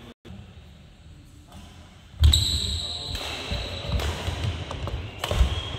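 Badminton doubles play on a wooden indoor court: repeated low thuds of players' shoes landing and stepping on the floor, with racket hits on the shuttlecock and players' voices. The sound gets suddenly louder about two seconds in, and a steady high-pitched whine comes in along with it.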